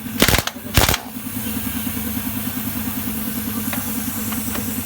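Two short bursts from a 1-inch pneumatic impact wrench in the first second. Under them runs a steady, low, rhythmic machine throb.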